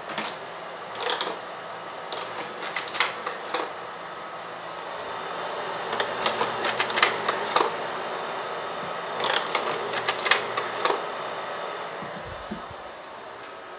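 1956 Bell & Howell Robomatic slide projector cycling slides: three rounds of mechanical clicking and clatter from its slide-changing mechanism, a few seconds apart, over the steady whir of its cooling fan.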